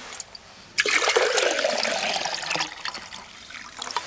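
Water poured into an empty 1.5-litre IKEA 365 glass jug. The splashing pour starts sharply about a second in, runs for about two seconds, then fades out.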